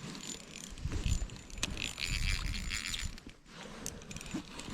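Fishing reel being cranked to bring up a hooked fish through the ice, with irregular mechanical clicks and low knocks.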